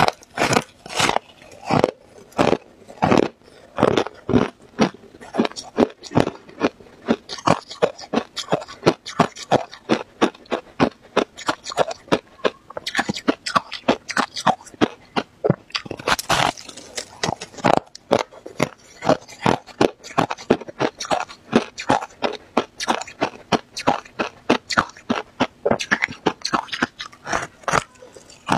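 Close-miked crunching of freezer frost being bitten and chewed: a steady run of crisp crunches, about three a second.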